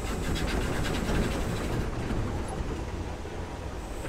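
Sentinel steam waggon on the move, heard from inside its cab beside the vertical boiler: a steady rumble from the engine and running gear, with quick clattering clicks in the first second or so.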